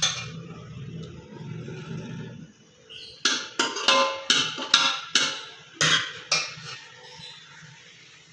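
A low rumble of handling noise, then a run of about eight sharp taps with a short ring, a little under half a second apart, starting about three seconds in.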